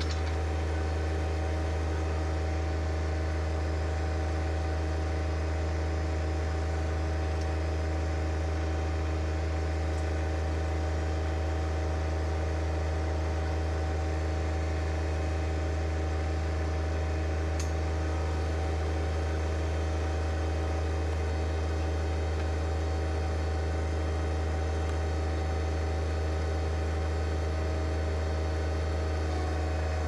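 John Deere 1025R compact tractor's three-cylinder diesel engine running at a steady speed, a constant low drone with no revving.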